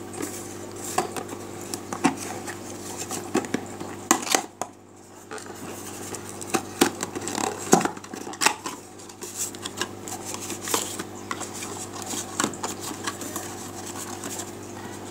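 Small cardboard product box being handled and opened by hand: scattered clicks, taps and crackles of the card and its flaps, over a steady low hum.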